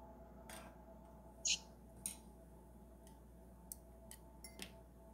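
Faint scattered clicks and light taps of paintbrushes and a ruler being handled, with a short rustle about a second and a half in, over a faint steady hum.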